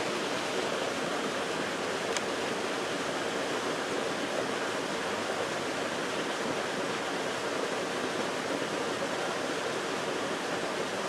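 A steady, even rushing noise with no distinct events, with one faint tick about two seconds in.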